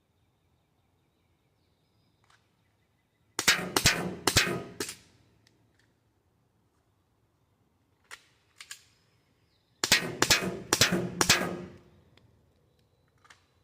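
Pistol shots fired in two quick strings of several shots each, about four a second, some six seconds apart, with two fainter cracks between the strings.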